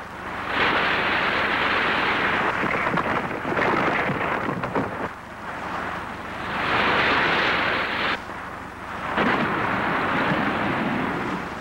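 Cartoon sound effect of churning, rushing sea water as a giant thumb-shaped machine surges through the waves and splashes up beside a ship. It is a loud rushing noise that comes in surges, with short sudden lulls around five and eight seconds in.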